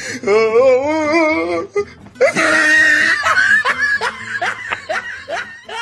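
Exaggerated laughter in several bursts: a long warbling laugh, a loud shrieking burst about two seconds in, then shorter chuckles.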